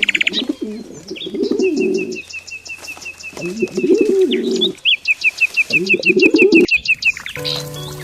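Birdsong: a pigeon-family bird cooing in four rolling phrases of about a second each, over a small bird's fast, even run of high chirps. Music fades in near the end.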